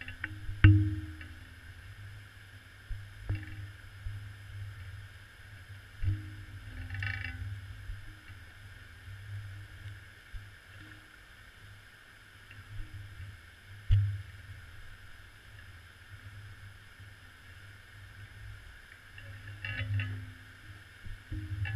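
Muffled underwater sound picked up through a GoPro's waterproof housing: a steady low rumble with a faint hum coming and going, broken by a few sharp knocks, the loudest about a second in and another near the middle, as the camera sways near the seabed.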